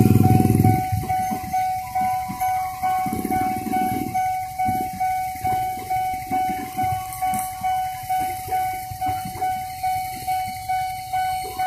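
Level-crossing warning bell ringing in a steady, even pulse about twice a second as a KRL commuter electric train runs over the crossing. A loud train horn cuts off about a second in.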